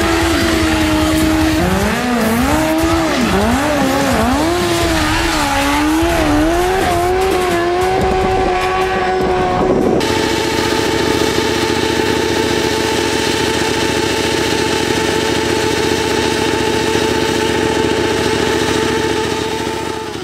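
Sportbike engines revving hard during burnouts over a layer of tyre noise. For the first half the pitch swings up and down as the throttle is worked. About halfway through it cuts abruptly to a Honda sportbike held at a steady high rev in a stationary burnout, fading out at the very end.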